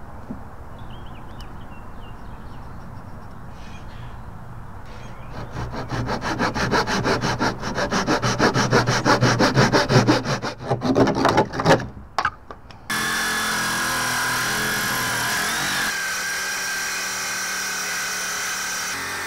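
A fine-toothed hand saw cutting through a thick cardboard carpet tube in quick, even back-and-forth strokes. The strokes start about five seconds in and stop suddenly a little past the middle. A loud, steady sound with held whining tones then begins abruptly.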